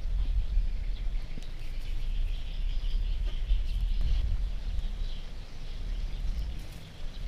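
Outdoor rural ambience: an uneven low rumble, with faint steady high chirping from insects and birds behind it.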